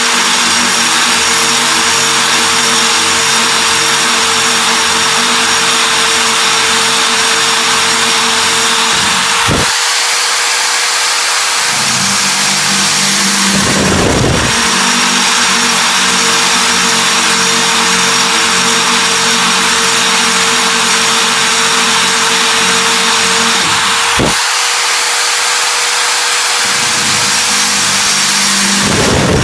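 Power drill running a brazed diamond core bit and grinding a hole, a steady motor hum under a loud grinding hiss. The motor hum drops out twice for a couple of seconds, about a third of the way in and near the end, while the hiss carries on.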